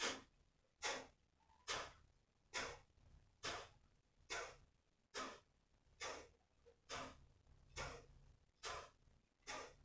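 Kapalbhati breathing: short, forceful exhalations through the right nostril with the left one held shut, a little faster than one a second, each a sharp nasal puff. The inhalations between them are silent, as the practice requires.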